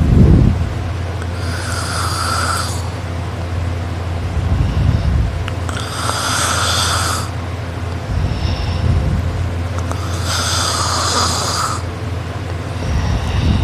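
A person snoring very loud in a slow, even rhythm, about one breath every four and a half seconds: a low snoring burst, the loudest at the very start, followed each time by a hissing, whistly breath. A steady low hum runs underneath.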